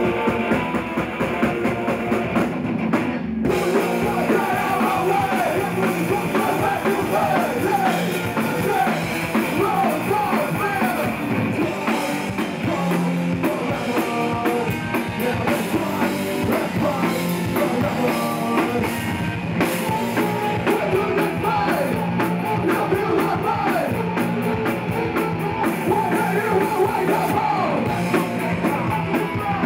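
Rock band playing live: electric guitars and a drum kit, with a male lead singer.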